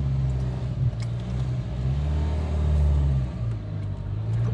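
Dacia Duster II's 1.5 dCi four-cylinder diesel engine pulling under load at low speed as the car climbs a rough, tilting slope. The engine note swells about three seconds in, then eases off.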